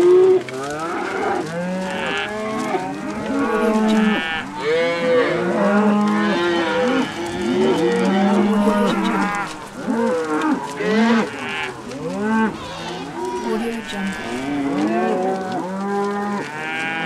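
A herd of cattle mooing, many cows calling at once: long low moos and shorter arching calls overlapping without a break.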